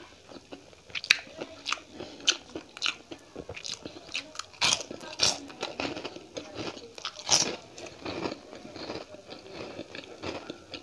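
Close-miked eating: crisp fried food crunching between the teeth as it is bitten and chewed, in an uneven run of sharp crunches, the loudest about a second in, around five seconds in and near seven and a half seconds.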